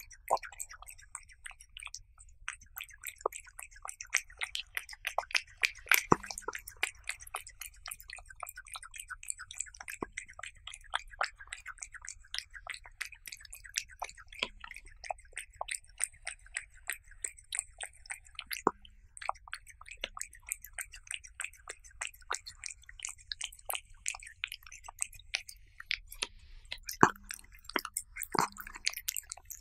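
A cat eating raw beef close up: quick wet chewing and licking clicks that go on without a break, with a few louder smacks now and then.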